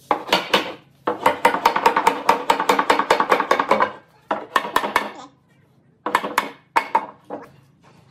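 Hammer tapping on a wooden door-frame rail in runs of quick blows, several a second, with short pauses between, knocking the frame pieces together.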